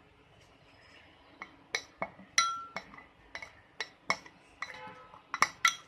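A spoon clinking and tapping against a bowl about a dozen times at an irregular pace, some strikes ringing briefly, while mustard oil is added to a spice paste.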